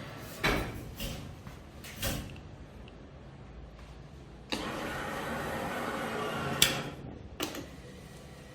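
Claw machine at work: a couple of knocks, then the crane's motor runs steadily for about two seconds and stops with a sharp click, followed by another click.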